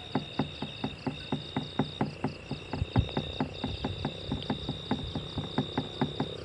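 Night insects trilling steadily at a high pitch. Over them comes a rapid, even clicking, about five a second, which stops near the end.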